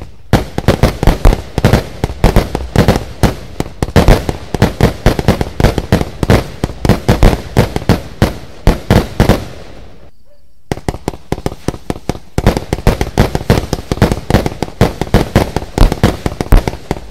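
Lesli Exploding Eagle fireworks cake (showbox) firing a rapid string of shots, several bangs a second as its shells launch and burst, with a brief lull about ten seconds in before the firing resumes.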